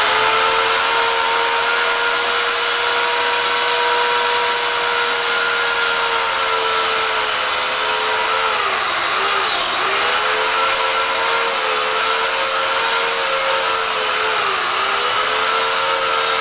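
Corded electric power tool motor running at full speed with a steady high whine, its pitch sagging briefly twice, around nine seconds in and near fifteen seconds, as it is pressed into the prop head.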